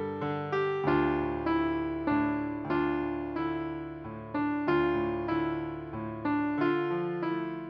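Background piano music: single notes struck in an even, unhurried rhythm, about one every half second or so, each fading away, over held lower notes.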